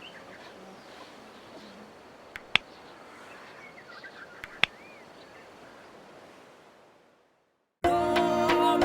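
Faint open-air riverside ambience with a few faint bird chirps and two sharp clicks, fading out to silence; music starts abruptly near the end.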